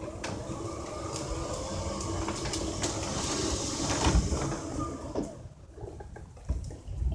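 A passing vehicle: a rushing noise that swells to a peak about four seconds in and then fades away, over low rumbling wind buffeting on the microphone.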